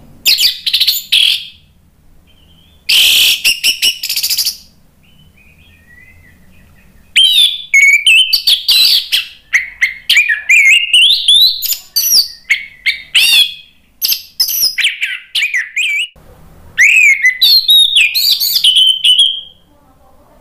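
Orange-headed thrush (anis merah) in full, loud song. Two short harsh, scratchy phrases come first, then long runs of rapid, varied whistled notes with brief pauses between them.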